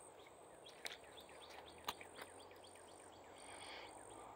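Near-silent woodland ambience: a faint bird song of quick, repeated falling notes, over a high insect buzz that breaks off and resumes. Two short clicks sound about one and two seconds in.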